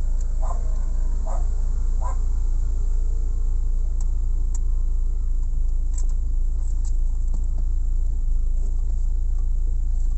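Car engine idling with a steady low hum. There are a few short squeaks in the first two seconds, and sharp clicks around the middle from hands working behind the dashboard.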